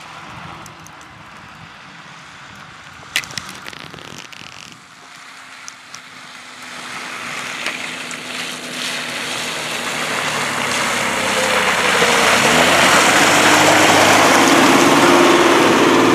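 Unimog military truck's engine approaching, growing steadily louder over several seconds until it runs loud and close, its pitch shifting as it comes up. A few sharp clicks about three seconds in.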